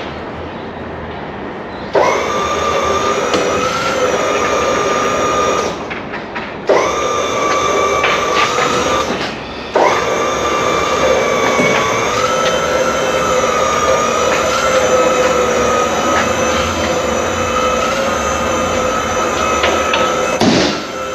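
An electric power tool's motor running with a high whine, in three runs of about four, three and eleven seconds, each starting suddenly.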